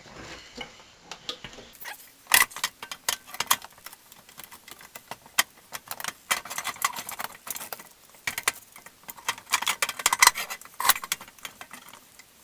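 Irregular metal clinks, taps and knocks as the snowblower's impeller and shaft are handled and worked back together by hand, in several clusters of sharp clicks.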